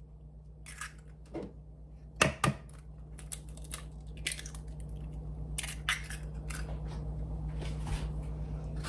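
Eggs being cracked on the rim of a mixing bowl: a sharp crack about two seconds in, followed by scattered light taps and clicks, over a steady low hum.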